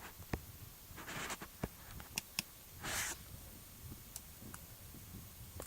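A Winchester multi-tool being handled: a few small sharp clicks of metal parts, with two short soft hisses of breath between them.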